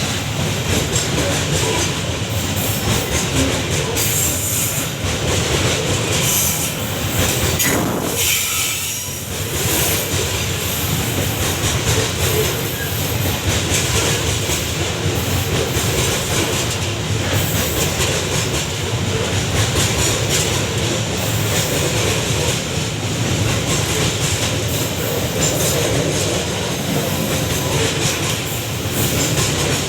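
Babaranjang coal train's wagons rolling past, a steady loud rumble with rhythmic clickety-clack of wheels over rail joints.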